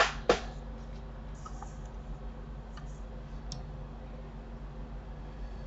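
Two sharp clicks of a computer mouse right at the start, then a few faint clicks, over a steady low hum.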